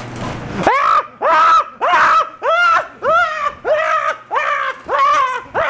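A man screaming in a high falsetto, about nine short shrieks in a row, each rising and falling, under a second apart, after a brief rustle at the start.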